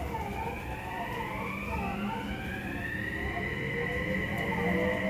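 Odakyu 3000 series (first batch) electric train's Mitsubishi IGBT VVVF inverter and traction motors whining while the train accelerates away from a stop. Several tones rise steadily in pitch over a low running rumble, getting gradually louder. This is the sound fans call the 'tornado inverter', heard from inside the passenger car.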